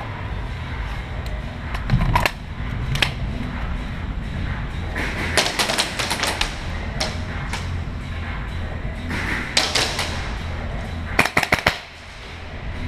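Airsoft guns firing: sharp clacking shots, a couple of single shots early, short bursts around the middle, and a quick burst of about five shots near the end that is the loudest, over a steady low hum.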